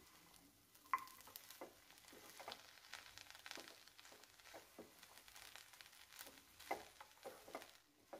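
Faint stirring of chapathi noodles in a pan with a wooden spatula: soft, irregular scrapes and light clicks as the strips and peas are turned over.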